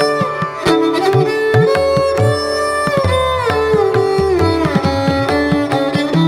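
Instrumental background music in an Indian classical style: a plucked string melody that slides between notes, over low drum strokes.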